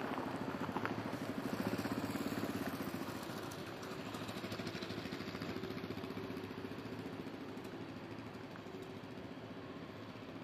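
Boeing 767-300 jet engines running at taxi power as the airliner rolls along the ground: a steady rumble and whine, loudest early on and fading slowly over the second half.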